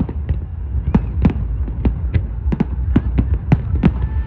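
Fireworks going off in quick, irregular succession: a dozen or so sharp bangs over a continuous low rumble.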